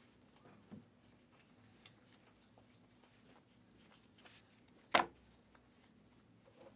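Hands flipping through a stack of basketball trading cards, the card stock rustling and sliding faintly. A single sharp click comes about five seconds in.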